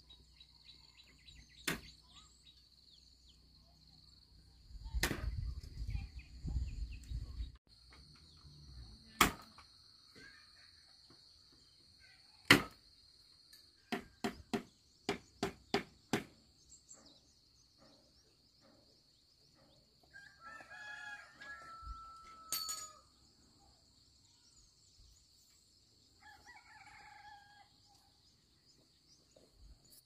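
A rooster crows once about two-thirds of the way in, and a shorter call follows near the end, over a steady high buzz of insects. Sharp knocks come scattered through, with a quick run of about six a little past the middle, and a low rumble for a couple of seconds about five seconds in.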